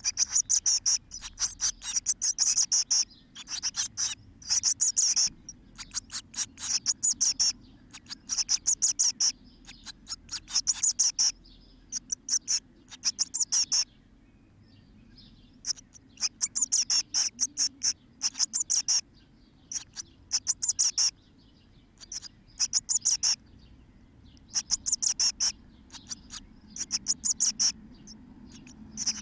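Blue tit nestlings in a nest box calling: bursts of rapid, high-pitched cheeping in groups about every second or two, with a pause of a couple of seconds around the middle.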